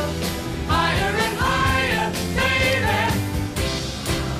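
Background music: a song with singing voices over a drum beat.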